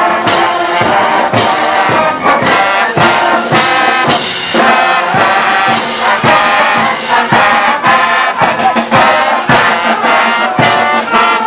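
A school marching band playing, with trumpets, trombones, saxophones and sousaphones over a steady beat of about two strokes a second.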